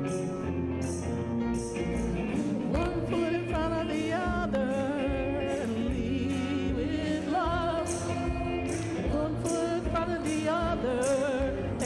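Church praise band playing a song with a steady beat, with a lead singer coming in about two and a half seconds in.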